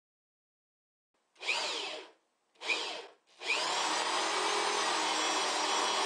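Corded electric drill with a 3/4-inch bit: two short bursts about a second and a half in, each with the motor's pitch rising and falling, then running steadily from about three and a half seconds in as it bores into a wooden 2x2.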